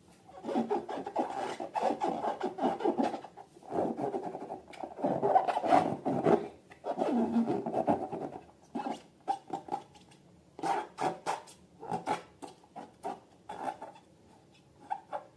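Slime being mixed and worked by hand: rubbing, squishing strokes in bursts of a few seconds, turning to shorter, quicker strokes about halfway through.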